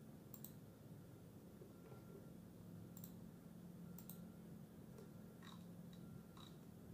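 Faint computer mouse clicks, several at irregular intervals, over a low steady hum.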